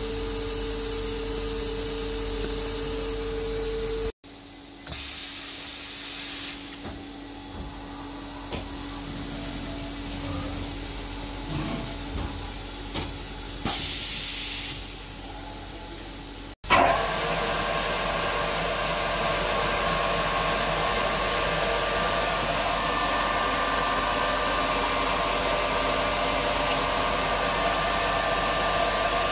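Studer S25 CNC cylindrical grinder running: a steady hum, then a quieter stretch with light clicks, then a louder steady hiss with ringing tones as the wheel grinds the workpiece under coolant.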